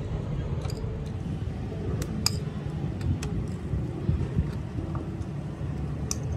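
A steady low rumble with a few sharp clicks of metal tongs and oyster shells on a charcoal grill, about two seconds in, again soon after, and once near the end.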